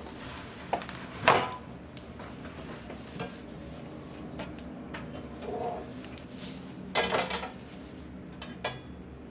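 Unpacking a bubble-wrapped side table: plastic wrap rustling and hard parts knocking and clattering as they are handled. The knocks come irregularly, with the loudest about a second in and a quick cluster of them about seven seconds in.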